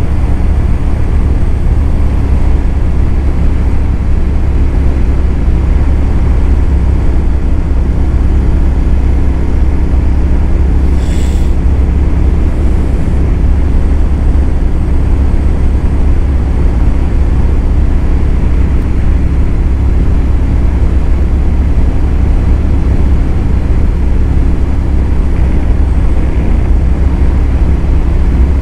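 Royal Enfield 650 parallel-twin motorcycle cruising at a steady speed: a steady engine drone under heavy wind rush on the helmet microphone. A brief high hiss comes about eleven seconds in.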